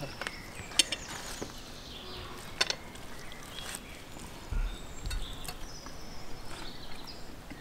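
A few sharp clicks and soft knocks of cutlery and dishes at a meal table, with faint insects and birds in the background.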